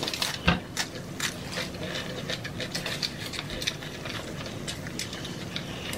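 Close-miked chewing of crunchy food: irregular crisp crackles and clicks, with one louder crunch about half a second in.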